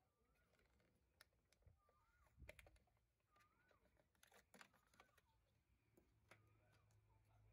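Faint clicks and rustles of 120 roll film and its paper backing handled against a plastic developing-tank film module. A bird gives a short wavering chirp about five times at even intervals.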